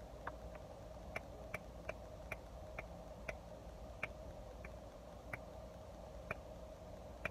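Faint small taps or clicks, uneven, about one or two a second, over a low steady hum.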